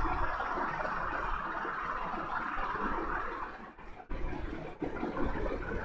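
A steady rushing hiss of background noise, dipping briefly about four seconds in.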